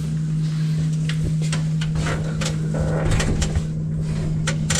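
A steady low hum with a string of short, sharp clicks and knocks, more of them in the second half.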